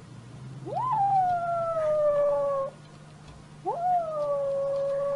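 An animal howling twice: each call jumps up sharply in pitch, then holds a long, slowly falling note for about two seconds.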